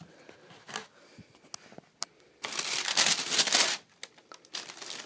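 Paper in a shoe box being handled: a few light taps and rustles, then a loud stretch of paper crinkling about two and a half seconds in that lasts about a second, and more rustling near the end.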